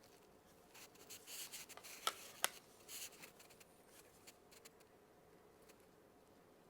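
Hands working a clip onto a PrintinZ zebra build plate: faint rubbing and scraping, with two sharp clicks about two seconds in, then a few faint ticks.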